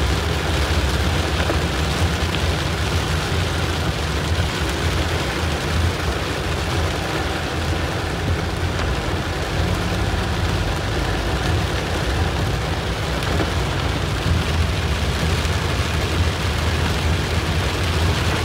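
Heavy rain pelting a moving car, heard from inside the cabin, over a steady low rumble of the car and its tyres on the wet road.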